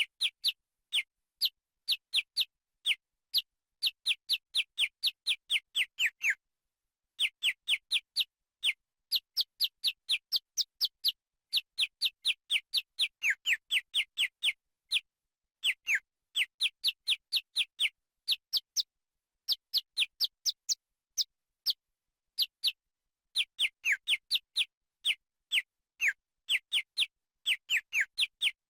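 Bitsmo VF30 phone (MediaTek MT65xx tone set) playing a ringtone made of quick chirps, each a short whistle sliding down in pitch. They come in rapid runs of several a second, with brief pauses between the runs.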